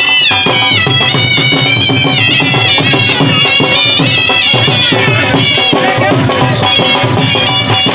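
Loud traditional folk music led by a high, reedy wind-instrument melody that moves up and down in small steps.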